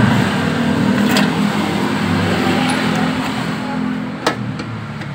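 A motor vehicle engine running steadily in the background and gradually fading, with two sharp clicks, about a second in and near the end.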